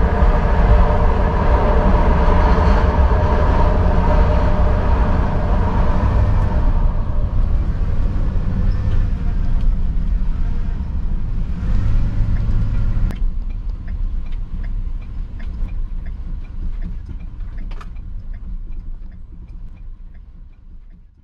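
Steady low vehicle rumble with several squealing tones over it. About thirteen seconds in it changes abruptly to a quieter rumble with faint scattered ticks, which fades out at the end.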